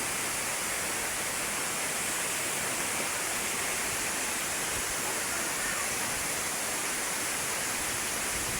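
Waterfall's steady rush of falling water, an even hiss-like roar with no breaks.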